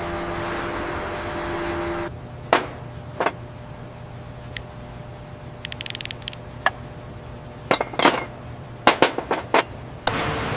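A steady industrial drone cuts off about two seconds in, leaving a low machine hum under sharp metallic clicks and clinks, irregularly spaced, with a quick rattle of ticks near the middle. A loud drone comes back near the end.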